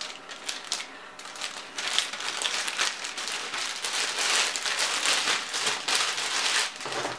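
Clear plastic bag crinkling as hands work it around a handheld object: a few light rustles at first, then steady, busy crinkling from about two seconds in.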